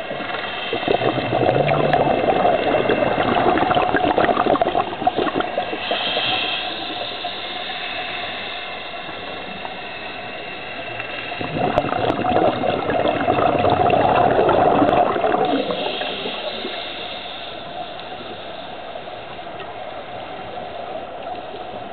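Scuba diver breathing through a regulator underwater: two long bursts of exhaled bubbles, about a second in and again about eleven seconds in, each followed by a short hiss of inhalation, with steady underwater noise between breaths.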